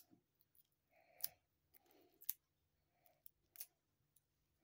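Stainless steel watch bracelet being handled, its links giving a few faint, sharp metallic clicks, about four in all, with soft handling noise between.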